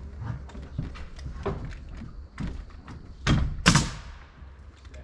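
Irregular knocks and thumps of lumber and ladder work on a wooden house frame, with two louder thumps a little past three seconds in.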